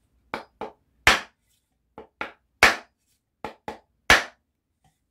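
Axe head being driven onto its wooden handle by knocking the axe down on a wooden chopping block: nine sharp wooden knocks in three groups, each group two lighter taps followed by a harder blow.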